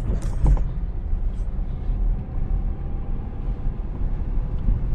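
Steady low rumble of a car driving on a rough dirt road, engine and tyre noise heard from inside the cabin, with a brief clatter about half a second in.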